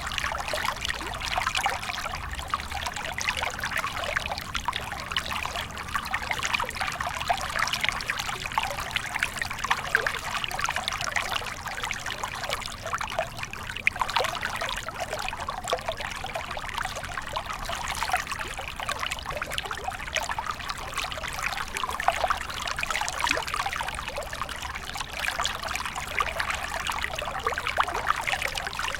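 A stream of water flowing and trickling steadily over stones, a continuous babble of small splashes.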